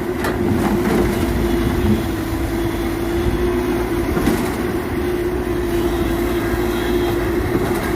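A heavy vehicle running steadily: a low rumble with a constant hum over it and a few faint clicks.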